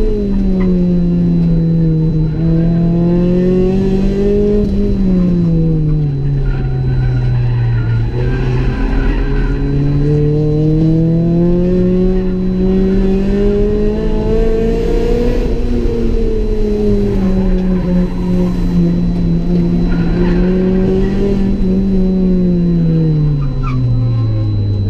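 Honda Civic EG's B18C 1.8-litre inline-four running hard on track, heard from inside the caged cabin. The engine note rises and falls slowly as the car accelerates and slows through corners, dropping to its lowest pitch near the end.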